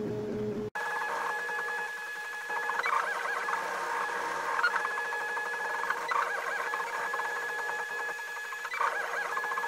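Sintron 3D printer's stepper motors whining as the print head and bed move, a few steady high tones that break and shift briefly every second or so with each change of move. A different, lower sound cuts off abruptly under a second in.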